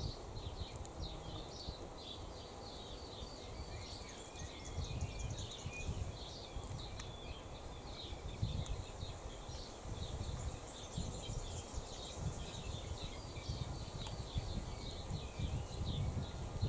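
Small birds chirping and twittering continuously, with a low buffeting rumble of wind on the microphone underneath.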